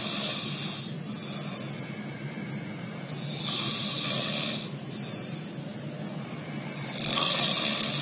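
A man's nasal snoring: hissy, breathy snores, one tailing off at the start, another about three seconds in, and a third starting near the end, over a steady low hum.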